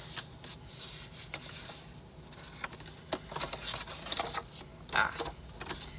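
Paper pages of a spiral-bound Erin Condren Life Planner being turned one after another, a run of short papery rustles and flaps that grows busier about three seconds in.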